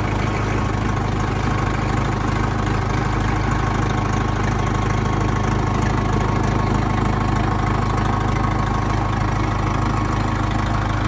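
Preet tractor's four-cylinder diesel engine idling steadily in neutral.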